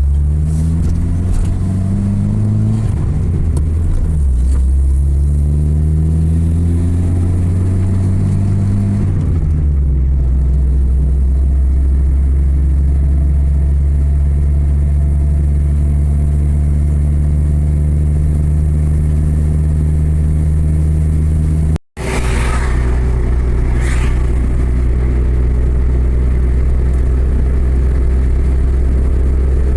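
Road vehicle engine pulling away and accelerating. Its pitch climbs and drops back several times as it shifts up through the gears, then it holds a steady cruise. The sound cuts out briefly about 22 seconds in.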